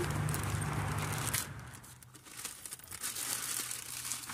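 Packaging being torn open and crinkled by hand to get at a new portable toilet. A steady low hum in the background stops about a second and a half in.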